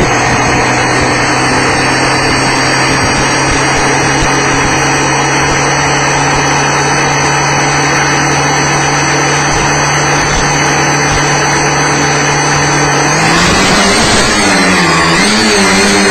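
Tricopter's electric motors and propellers buzzing at a steady pitch under a constant hiss, heard through the onboard microphone over the analog FPV video link. About thirteen seconds in the pitch shifts, dips and then wavers upward as the throttle changes.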